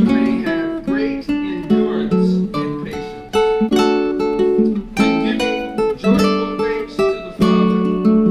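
Acoustic guitar music: chords plucked and strummed, a fresh chord struck every half second or so and each left to ring and fade.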